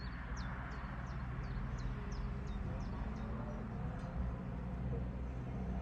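A small bird sings a run of about nine short, high, falling notes, roughly three a second, that stops a little past halfway. Under it is the low, steady rumble of a river cruiser's engine idling.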